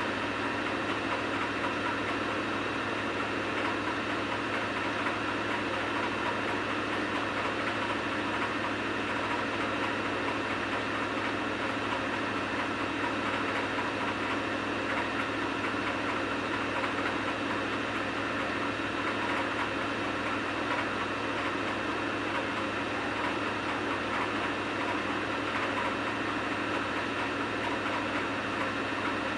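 Samsung washing machine running a load of wet towels: a steady motor hum and whine at an even pitch.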